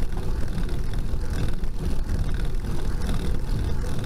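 Steady low rumble of wind buffeting the microphone of a bicycle-mounted camera, with road noise from the bike climbing slowly.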